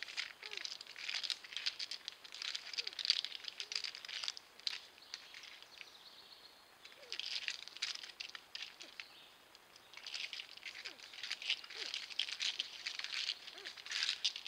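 Porcupine's claws scratching and scraping on tree bark as it climbs the trunk, in runs of rapid crackling clicks with two brief lulls in the middle. Faint short squeaks come through now and then.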